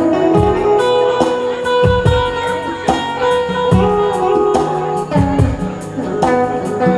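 Live band playing an instrumental passage: guitar over a bass line and a regular drum beat.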